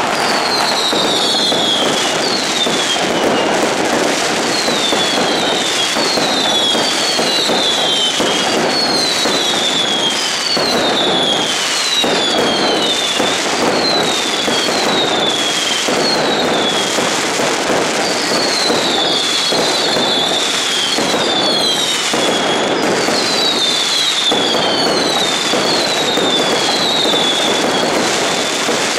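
Mascletà firecrackers going off in a dense, continuous barrage of bangs and crackling, with whistling fireworks giving short falling whistles about once a second over it.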